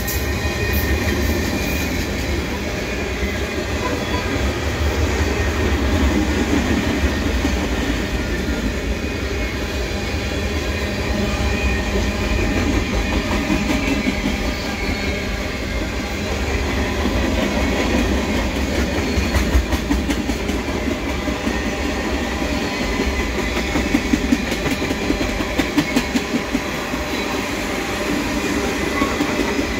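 Freight cars of a Canadian National mixed freight, mostly tank cars and covered hoppers, rolling past: a steady rumble of steel wheels on rail, with clickety-clack as the wheels cross rail joints. A run of sharper clacks comes about three quarters of the way through.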